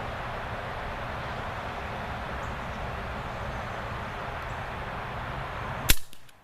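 A single sharp shot from an EDGun Leshiy 2 .30 calibre PCP air rifle firing a JSB Hades pellet near the end, over a steady outdoor background hiss.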